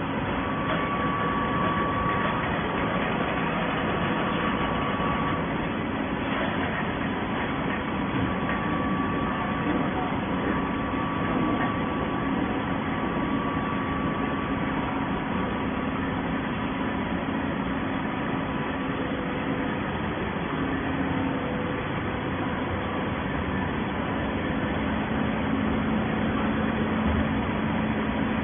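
Plastic-bottle baling machine running with a steady mechanical hum, with a few held tones over an even noise.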